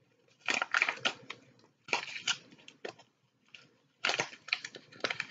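Plastic packet of bath soak crinkling and crackling in the hands in several short bursts as it is worked open.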